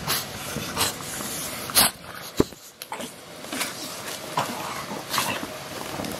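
English bulldogs making short, noisy breaths and snuffles in irregular bursts, with a single sharp click about two and a half seconds in.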